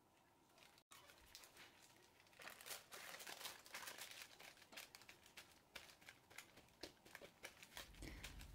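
Faint crinkling of baking paper and a disposable plastic glove as a hand presses and moves on the paper, with scattered small clicks. It gets a little louder about two and a half seconds in.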